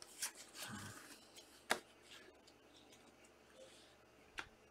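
Trading cards being handled: soft rustling and sliding with a few sharp clicks, one a little under two seconds in and another near the end.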